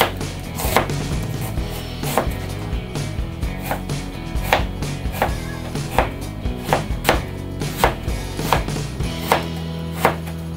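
Chef's knife slicing onion and then carrot into thin strips on a plastic cutting board, each cut a sharp tap of the blade on the board, about two a second.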